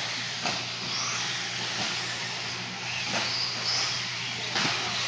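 Radio-controlled short course trucks and buggies running on a dirt track. Their motors whine, rising and falling as they accelerate and brake, over a steady hiss of tyres on dirt, with a couple of sharp knocks.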